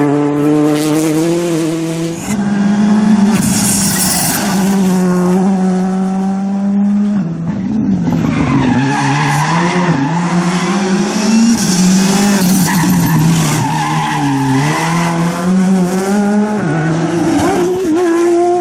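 Rally car engine driven hard, its pitch climbing and dropping in steps through gear changes and lifts, with bursts of tyre squeal.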